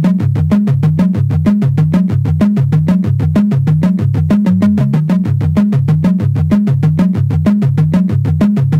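Background electronic music: a synthesizer bass line repeating a short figure under a quick, steady pulse of short notes.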